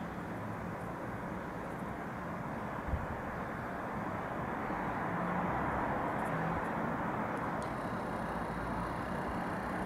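Distant city traffic: a steady low rushing noise that swells a little midway, with a single knock about three seconds in.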